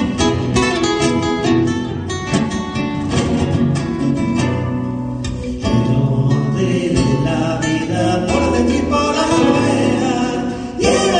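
Acoustic guitar playing a folk accompaniment, plucked and strummed at a lively pace, then two voices singing sustained harmonies over it from about halfway through.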